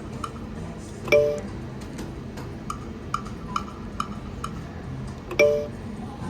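Ultimate Fire Link slot machine's electronic game sounds while it spins: a steady run of short ticks with small bell-like chimes, and two louder tones about four seconds apart, about a second in and near the end.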